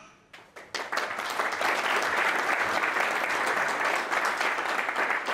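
Audience applauding: a few scattered claps that swell into full, steady applause about a second in.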